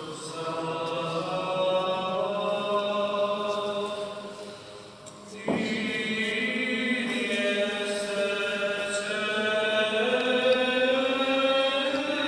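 Orthodox liturgical chant sung by voices in long, held notes. The singing fades about four seconds in and comes back abruptly about a second later.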